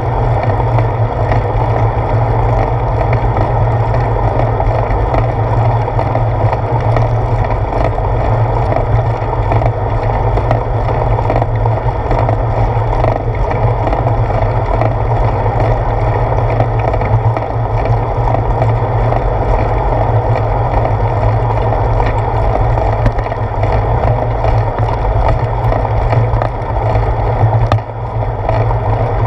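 Steady road rumble of a bicycle rolling along asphalt, picked up through a handlebar-mounted GoPro Hero 4: tyre and road vibration with wind noise. A brief knock comes near the end.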